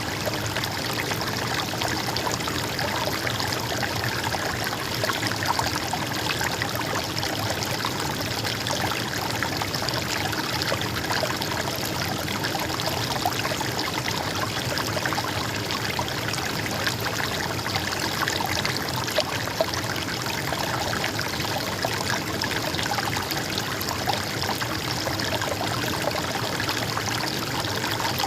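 Flowing stream water trickling and babbling steadily.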